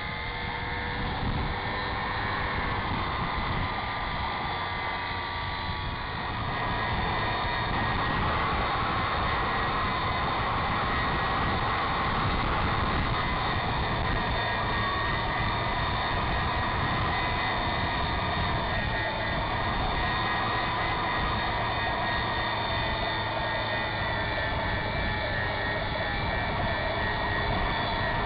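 A radio-controlled model airplane's motor and propeller run steadily, with airflow noise, as heard from a camera on board the model. The sound gets louder about six seconds in and then holds steady.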